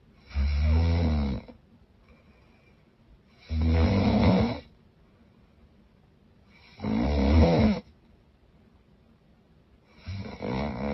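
A woman snoring loudly: four deep, rasping snores about three seconds apart, each lasting about a second, the last one a little weaker.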